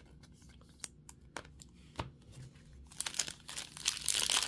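A few faint clicks and taps, then about three seconds in, loud crinkling and tearing as a foil trading-card pack wrapper is pulled open.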